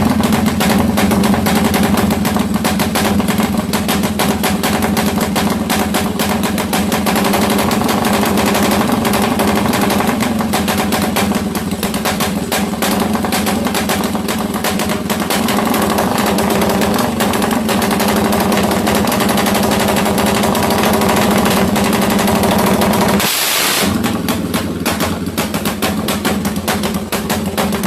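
Bored-out Suzuki Satria FU single-cylinder engine with an 87 mm piston, running at a steady speed with a fast chopping exhaust beat, likened to a helicopter. The sound breaks off briefly about 23 seconds in, then resumes.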